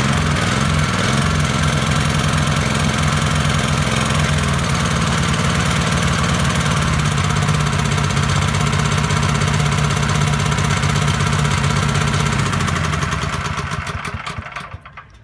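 Shindaiwa JE2015 pressure washer's small petrol engine running, unevenly for the first few seconds and then steadily, before it dies away near the end.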